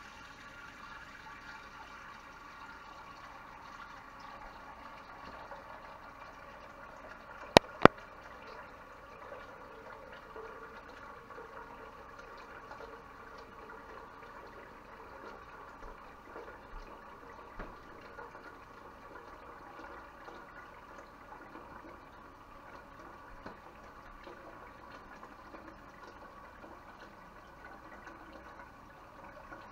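Water heating in an aluminium saucepan on an electric coil burner, a steady hiss with light bubbling. Two sharp clicks close together about seven and a half seconds in.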